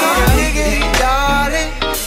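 Background music with a beat: a wavering melody over a deep bass note held for most of the two seconds.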